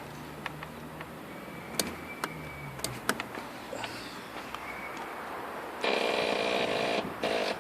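Electric starter of a Pulse Adrenaline 125cc motorbike cranking in a burst of about a second that cuts off suddenly, then a short second burst near the end, without the engine firing: the bike won't start. A few light clicks come before it.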